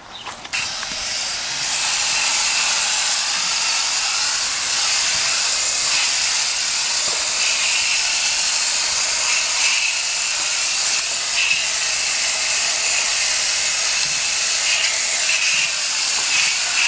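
Steady hiss of liquid spraying from a nozzle onto an air conditioner condenser coil as it is washed down, starting about half a second in.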